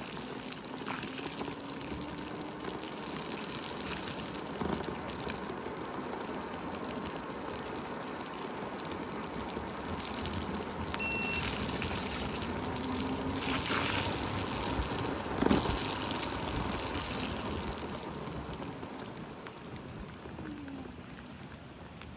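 Steady rush of a rain-swollen creek in flood, a sound easily taken for a passing vehicle; it swells a little past the middle. A single sharp knock comes about fifteen seconds in.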